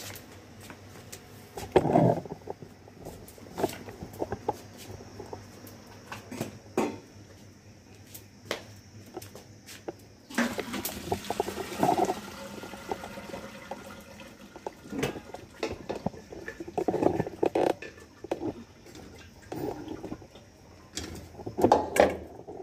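Hot water being poured off boiled macaroni from a steel pot, splashing out for a few seconds about ten seconds in. Steel pots and lids clank and knock now and then before and after.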